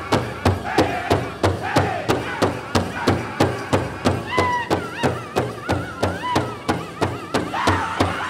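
Powwow drum group playing a chicken dance song: a big drum struck in a steady beat about three times a second, with the singers' high voices gliding and wavering over it, highest about halfway through.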